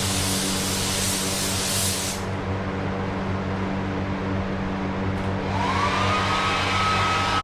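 Steady machine hum with a hiss of rushing air that stops about two seconds in, then a whine that rises and holds near the end.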